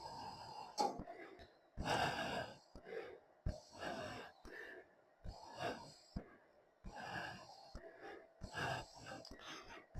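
Faint, breath-like noisy puffs, roughly one every second or so, with a few sharp clicks between them.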